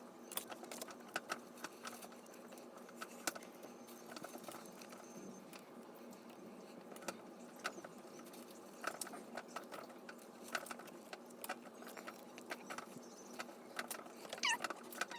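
Slime being handled: faint, scattered clicks and pops, with a short squeaky gliding sound near the end.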